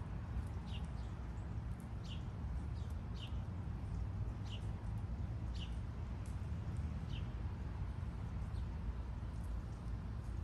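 A bird calling in short, falling chirps, about one every second or so, over a steady low rumble.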